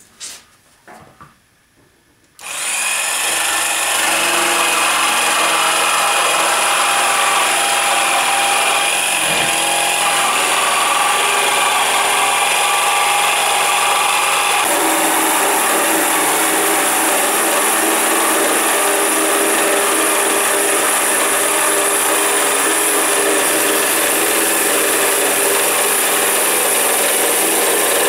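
A few soft handling knocks, then about two and a half seconds in a jigsaw starts and runs steadily, its blade cutting a curve through an oak table top. The tone of the cut shifts slightly about halfway through.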